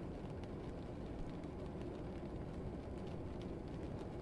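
Classroom ambience: a steady low rumble with faint, scattered light clicks.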